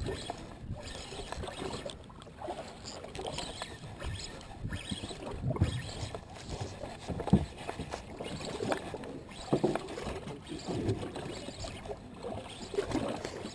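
Sea water lapping and sloshing against the hull of a small drifting boat, with scattered short knocks from handling the rod and reel.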